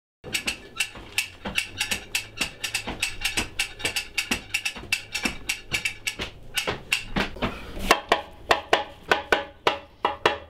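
Rhythmic percussion of quick, dry clicking strokes at about four or five a second. Near the end it turns into louder, hollow knocks of several pitches.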